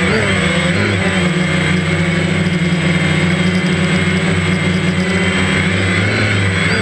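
DJI Phantom quadcopter's electric motors and propellers buzzing steadily in flight, heard from the camera on the drone itself. The pitch shifts briefly at the start and again near the end as the throttle changes.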